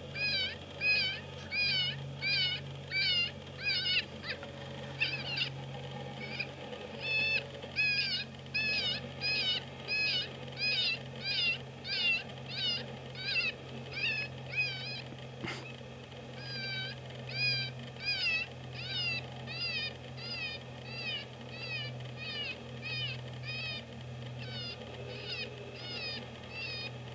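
FoxPro electronic predator caller playing a looped animal distress call: short, high, wavering cries repeating evenly about one and a half times a second. A single sharp click sounds about halfway through.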